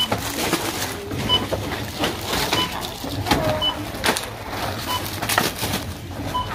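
Supermarket checkout barcode scanner beeping as grocery items are scanned, a short beep about every second, mixed with the knocks and clatter of groceries being handled.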